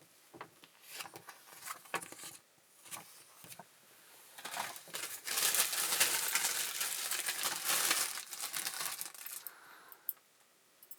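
Packaging material crinkling and rustling as it is handled and pulled off the contents of an unboxing. It comes as scattered crackles at first, then a few seconds of dense, continuous crinkling that stops near the end.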